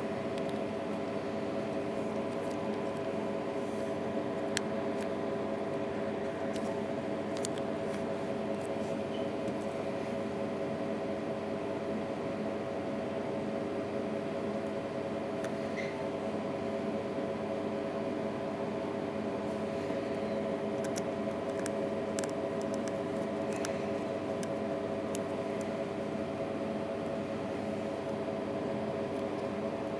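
Steady droning hum made of several held tones, with occasional faint, light clicks scattered through it.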